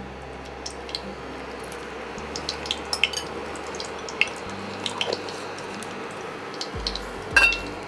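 Metal spoons and utensils clinking and knocking, with one ringing clink near the end, over a steady hiss of oil and ghee heating in a kadai.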